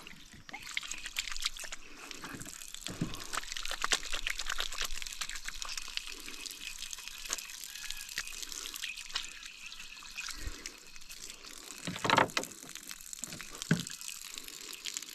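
Water running and splashing, with scattered small clicks and a few louder knocks, loudest about twelve seconds in.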